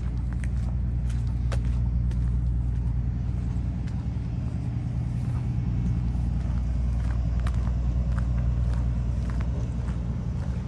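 A large engine running steadily, a low droning hum, with faint scattered clicks over it.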